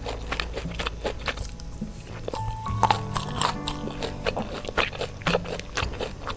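Close-miked biting and chewing with many short crisp clicks, over background music with steady notes and a bass line.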